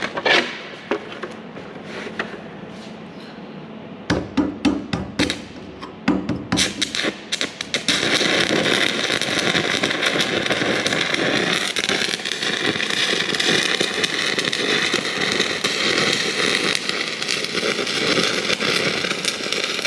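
Stick (electrode) arc welding: a knock at the start, then stuttering crackles as the electrode is struck about four seconds in. From about eight seconds on the arc burns with a steady crackle.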